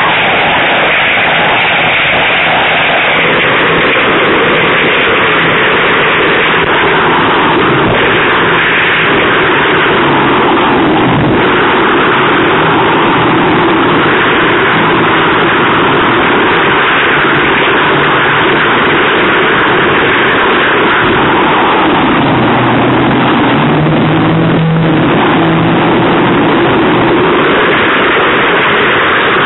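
Twin outboard engines of an RNLI Atlantic 85 inshore lifeboat running hard through rough sea, their pitch shifting up and down as the throttle changes. A heavy rush of wind and spray noise lies over them.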